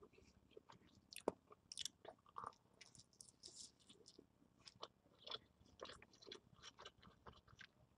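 A person chewing a mouthful of pizza, faint and close, with irregular small wet clicks and crunches and one sharper crunch about a second in.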